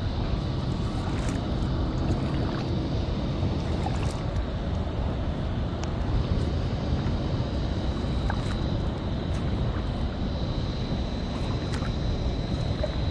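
Wind rumbling on the microphone over the water sounds of an inflatable kayak being paddled, the paddle blades dipping and splashing, with scattered small clicks and drips.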